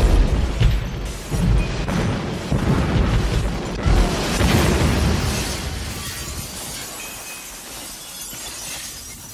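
Film-style sound effects: booming crashes and shattering glass over music, with heavy hits near the start, about a second and a half in and about four seconds in, then dying away over the last few seconds.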